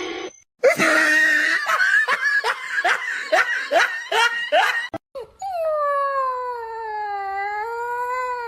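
A run of rapid laughter-like calls, about two or three a second, each falling in pitch. Then, after a sudden cut, one long dog howl that dips and rises in pitch and lasts about three seconds.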